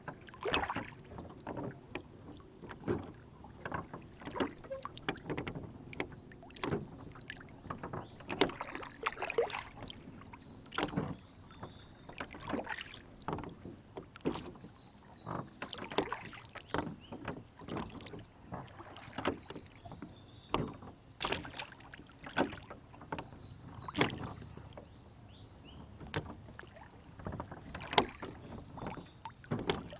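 Water slapping and lapping against a small rowboat's hull, with frequent irregular knocks and splashes of the boat and oars on the lake surface.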